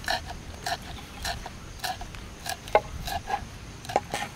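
Short animal calls repeated about every half second, some with sharper clicks among them.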